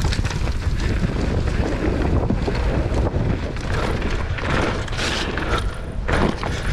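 Wind rushing over the camera microphone on a downhill mountain-bike run, with tyre noise and the bike rattling over rough trail. There is a brief louder clatter about six seconds in.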